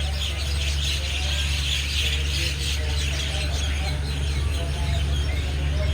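Many birds chirping and chattering together, with a steady low hum underneath, typical of the waiting train's idling diesel locomotive.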